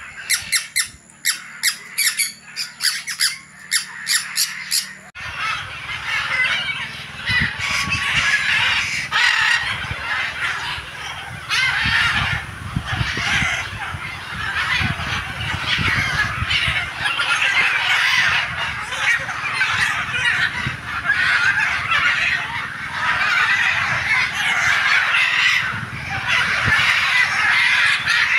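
Caged parrots and other aviary birds squawking. For the first few seconds one sharp call repeats about three times a second; then a dense, continuous din of many birds calling at once sets in and runs on.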